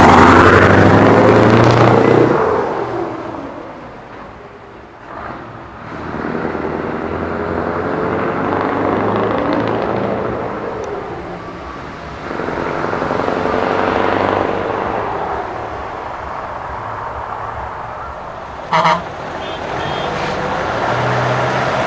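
Scania trucks, bonneted Torpedo tractors among them, driving past one after another, their diesel engines loudest as each goes by and fading as it pulls away. Near the end, one short horn toot.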